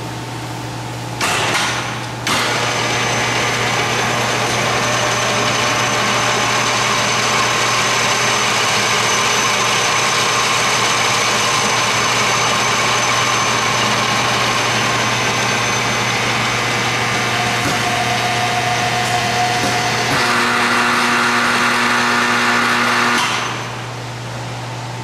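Hardinge HLV-H toolroom lathe's spindle drive running with nothing in the spindle. It starts about a second in, dips briefly and picks up again, then runs steadily. Its tone changes twice near the end, and it stops within about a second.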